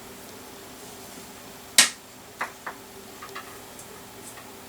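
A sharp click a little under two seconds in and a few lighter clicks after it as parts are handled inside a computer case, over the steady low hum of the running computer's fans.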